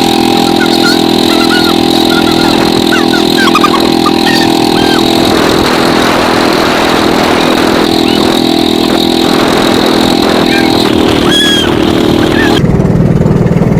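A motor engine running steadily and loudly, with faint high chirps over it in the first few seconds. Near the end the sound changes abruptly to a lower, rougher engine note.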